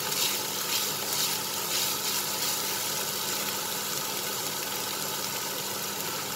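Minced pork sizzling as it is dry-fried in a nonstick frying pan, cooked until the fat runs out and the meat goes dry. Wooden spatulas scrape and toss it about twice a second for the first two or three seconds, then only the steady sizzle goes on over a faint low hum.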